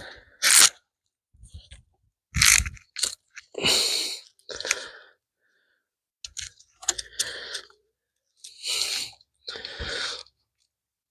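Irregular crinkling and crunching of a 7.3 Powerstroke's IPR wiring harness being handled, its old electrical tape and plastic wrapping being pulled at, in about a dozen short bursts with pauses between.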